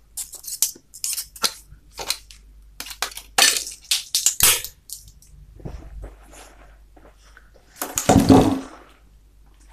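Plastic push-button on an old circuit board being cracked and broken apart with pliers: a string of sharp clicks and snaps, with small parts clinking, and a louder, longer crackle near the end.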